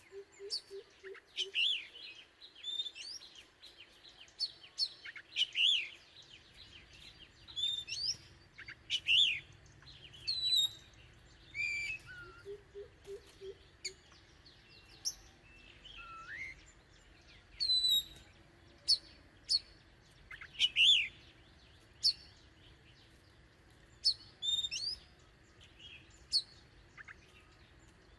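Oriental magpie-robin singing: a varied song of short whistled notes, chirps and quick rising and falling slurs, delivered in phrases with short pauses. Twice a short run of low pips sounds beneath it.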